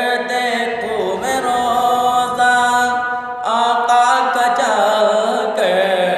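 A man's solo voice singing an Urdu naat without accompaniment. He draws out long, wavering notes that slide between pitches, with short breaths about a second and about three and a half seconds in.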